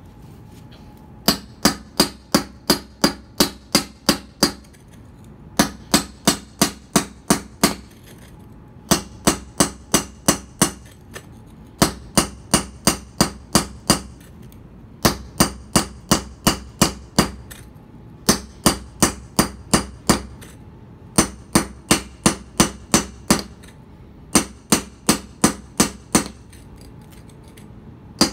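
Hammer striking a mason's chisel held on a paving stone: sharp, ringing metal-on-metal blows about three a second, in runs of eight to ten with short pauses between. The chisel is scoring a line to crack the stone to size.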